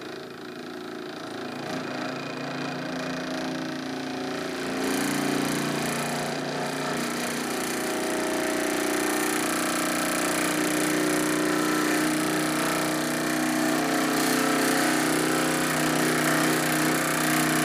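A 24-volt DC electric motor spinning up a gyroscope's flywheel at 12 volts: a steady mechanical hum of several tones that grows louder over the first five seconds, then runs steady.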